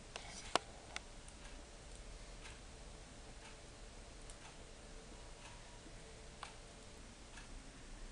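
Faint ticking about once a second, with a few sharper clicks in the first second.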